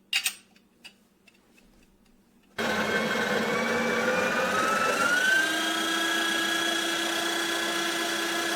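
Built-in conical burr grinder of a Breville Barista Express espresso machine grinding a double dose into the portafilter. It starts suddenly about two and a half seconds in, and its whine rises in pitch and then holds steady before winding down at the end. A couple of short clicks come just before it.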